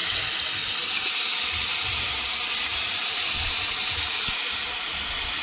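Diced seasonings tipped into hot oil in a pot, sizzling loudly: a steady frying hiss that starts suddenly as they hit the pan.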